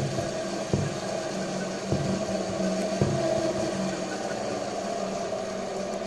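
Washing-machine universal motor running on DC, with a steady hum. Three sharp clicks come in the first three seconds.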